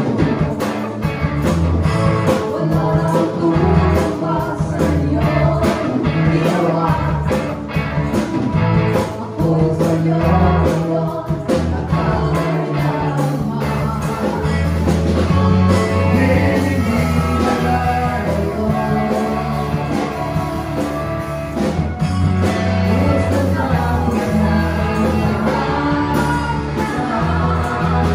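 Live band playing an upbeat song: a singer's voice over electric guitar, keyboard and drums, continuing without a break.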